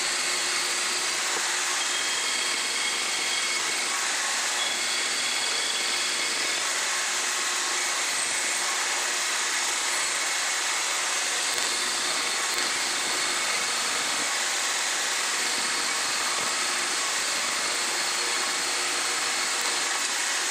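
Portable band saw running steadily, its blade cutting through the risers and sprues of a rough aluminum sand casting.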